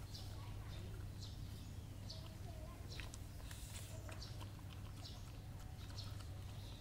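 A dog eating from a steel bowl: irregular short, sharp clicks and smacks of chewing and lapping. A steady low hum runs underneath.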